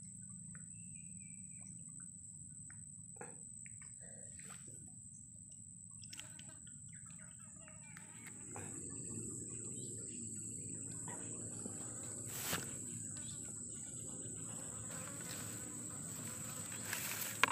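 Insects droning steadily at one high pitch, over the low rush of river water that grows louder about eight seconds in, with a sharp click about twelve seconds in.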